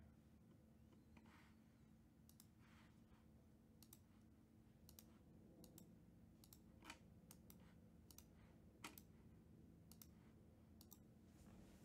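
Faint, irregular clicks of a computer mouse and keyboard over a low room hum.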